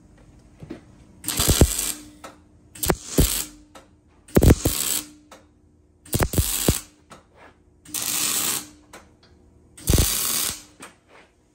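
Six short bursts of mechanical rattling and clunking, each half a second to a second long, several starting with a sharp knock.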